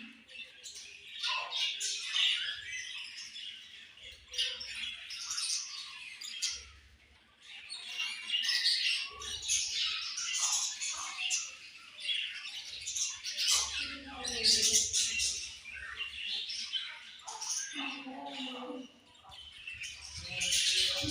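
A group of budgerigars chirping and chattering, many quick high calls overlapping in bursts with brief lulls between.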